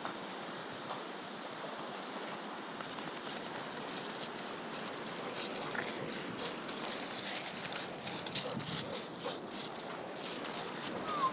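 Water lapping at a pebble shore with wind on the microphone, then, from about five seconds in, irregular crunching, rattling and splashing of wet pebbles and shallow water as a swimming dog comes ashore through the shallows.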